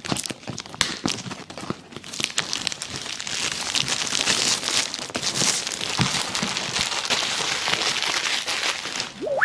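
Clear plastic wrapping being crumpled in the hands. After a few sharp crackles, a dense crinkling sets in about two seconds in and keeps going almost to the end.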